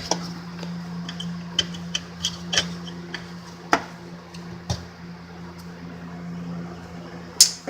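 Scattered sharp clicks and light knocks from plastic parts of the AdBlue heater and pump assembly being handled and fitted together, with the loudest click near the end, over a steady low hum.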